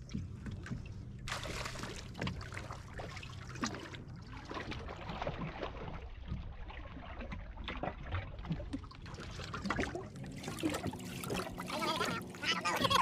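Water splashing and trickling around a small fishing boat, with many short knocks and clicks of handling aboard and a low steady hum at the start and again near the end.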